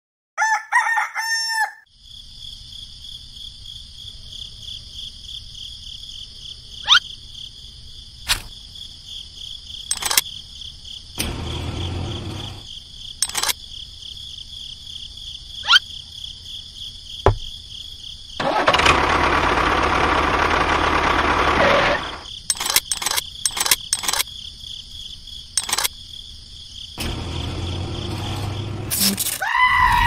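A rooster crows once at the start. Then a steady, high-pitched pulsing drone carries on under scattered clicks, with a few seconds of louder hissing noise about two-thirds of the way through. A bleat-like call begins right at the end.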